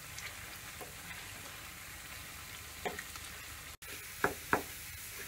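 Soaked, ground moong dal frying in ghee in a nonstick pan, sizzling steadily as it is roasted on medium heat. A wooden spatula stirs and presses it, scraping the pan, with two sharp knocks against the pan near the end.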